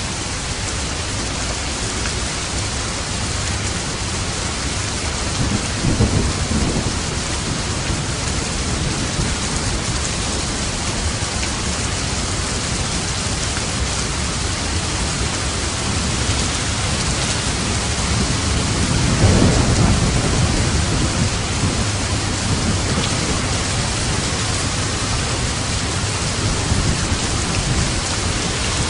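Steady heavy rain with two rolls of distant thunder: a short rumble about six seconds in and a longer, louder one about two-thirds of the way through.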